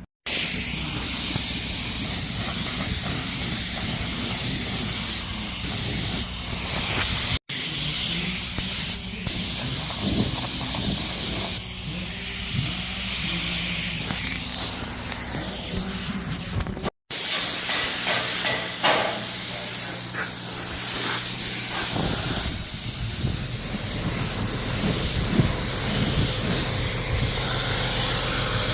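Compressed-air paint spray gun hissing steadily while spraying base coat onto car body panels, over a low steady hum. The sound cuts out for an instant twice, about a quarter of the way in and past the middle.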